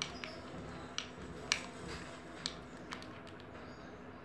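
Slime being stirred in a clear plastic bowl: a handful of sharp, irregularly spaced clicks as the stirrer knocks against the bowl, in a glue-based slime mixture.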